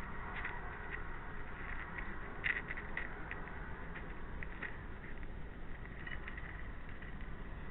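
A hedgehog foraging right by the microphone: irregular soft clicks and smacks of it eating and shuffling, over a steady hiss.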